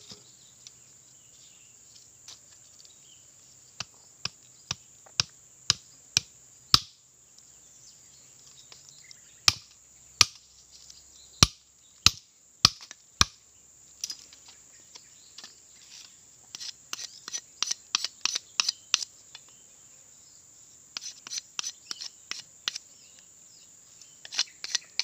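Machete chopping and splitting wood into kindling: sharp single chops spaced a second or so apart, then quicker runs of several light chops a second in the second half.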